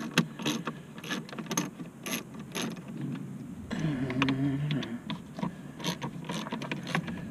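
Cheap socket ratchet clicking as it is worked back and forth on dash bolts, a string of sharp clicks about two a second; the ratchet is worn and has about had it. A brief low drone is heard in the middle.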